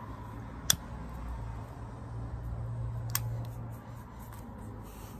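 Two sharp clicks about two and a half seconds apart from the trigger of a long-nosed utility lighter, lit to singe the frayed nylon tape of a retractable dog leash.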